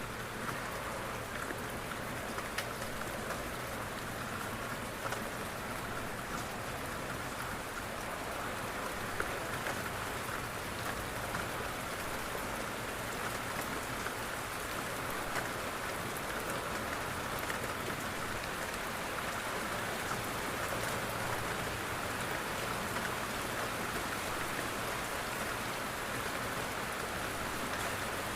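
Steady rain falling on a window: an even hiss of rain with scattered sharp ticks of single drops striking the glass.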